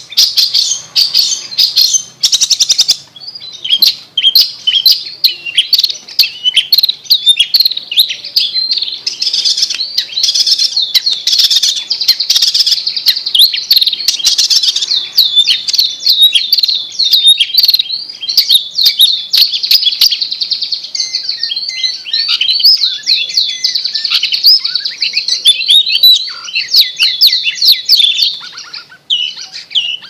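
Long-tailed shrike singing a fast, unbroken stream of high chirps and quick trills.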